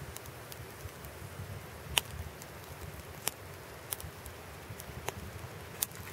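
Wood burning in a wood-gas camping stove: a low steady rumble with sharp crackling pops at irregular intervals, the loudest about two seconds in.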